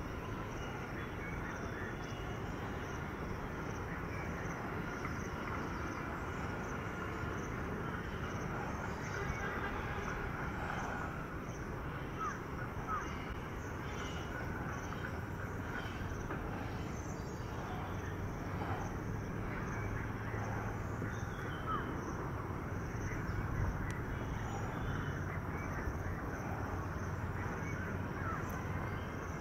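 Birds calling and chirping over a steady low background rumble.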